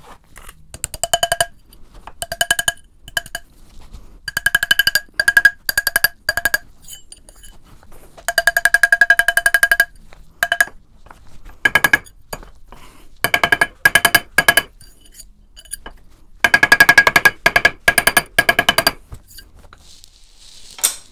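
Hammer tapping a copper ring on a steel ring mandrel to true it round: rapid taps in bursts of up to about two seconds, the mandrel ringing through each burst.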